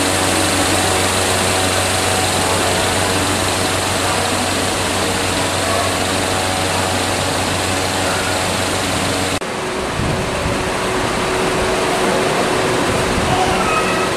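Loud steady machine drone with a low hum. About nine and a half seconds in, the low hum cuts off suddenly, leaving a steady rushing noise.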